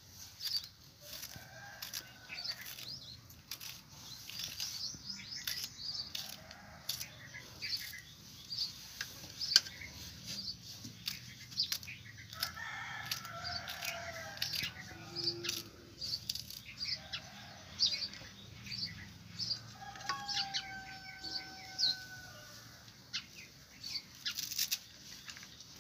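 Green chillies being sliced by hand with a small knife over a stone mortar: a long run of small crisp cuts. Chickens call in the background, with the longest call held for about two seconds some twenty seconds in.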